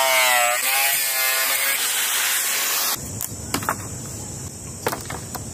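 A power tool working wood: a whine that falls in pitch, then harsh rasping noise. It stops abruptly about three seconds in, followed by a few light, sharp knocks.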